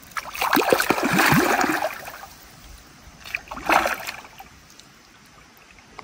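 Water splashing in two bouts, a long loud one at the start and a shorter one near the middle: a hooked trairão (wolf fish) thrashing at the surface while it is grabbed by hand in shallow water.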